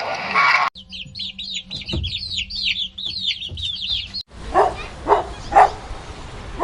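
Bird calls: a rapid run of short, high, falling chirps, then four louder clucking calls about half a second apart.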